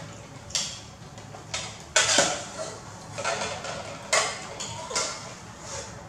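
Metal spoons clinking and scraping against a stainless steel pot and a plate as porridge is spooned out, in a series of sharp clinks about one or two a second.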